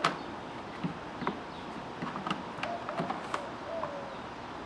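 Handling noise from a plastic portable fridge and its cutting board: a sharp click at the start, then a scatter of light knocks and clicks.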